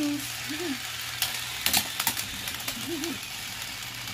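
Two remote-controlled toy boxing robots fighting: small motors whirring steadily with sharp plastic clacks as punches land, several of them about a second and a half to two seconds in.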